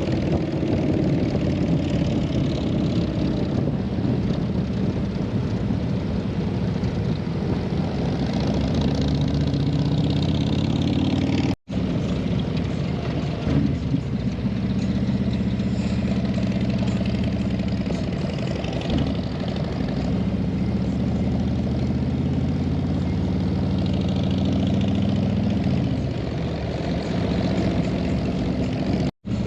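Harley-Davidson touring motorcycle's V-twin engine under way, its note rising and falling as the rider works the throttle and gears, with wind rushing over the microphone.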